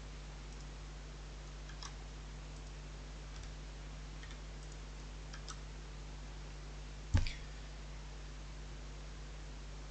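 Sparse computer keyboard keystrokes: a few faint, scattered clicks and one louder key press about seven seconds in, over a low steady electrical hum.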